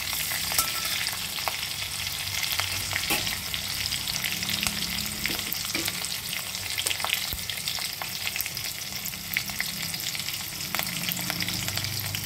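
Cumin seeds and green chilies sizzling in hot oil in a pan: a steady hiss with many small crackles and pops as the cumin seeds splutter.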